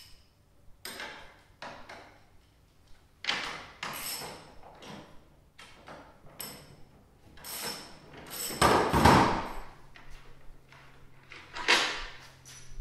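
Ratchet and socket extension working the nut off the center bolt of a plastic snowmobile ski held in a bench vise: irregular metal clicks, scrapes and clunks. The loudest clatter comes about nine seconds in, and another near the end.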